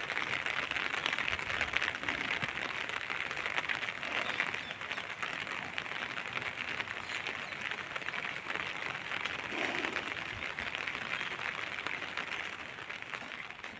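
Steady rain falling, a dense hiss of countless fine drop ticks.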